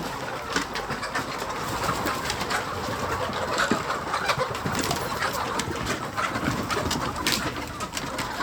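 A pen full of laying hens: a steady mass of low clucking and crooning from the flock, with scattered sharp clicks and scratches.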